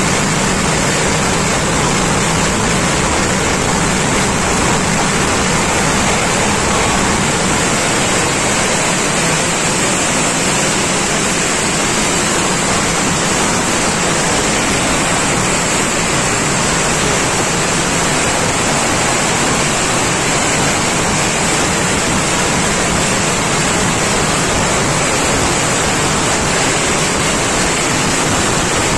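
Fireworks barrage (vedikettu) so dense that the explosions merge into a steady, unbroken noise, with no separate bangs standing out.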